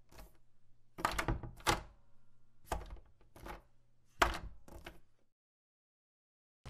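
Door locks being worked open: a knob lock and a deadbolt turned and rattled, giving about six sharp clunks and clicks spread over some four seconds.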